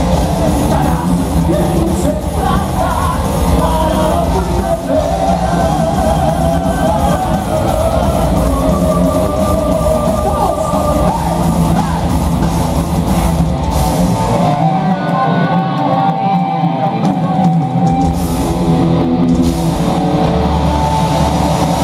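Live heavy metal band, with distorted electric guitars, bass and drums under a male lead singer, heard from the crowd in a large hall. For a few seconds past the middle the heavy low end drops away under held sung notes, then comes back near the end.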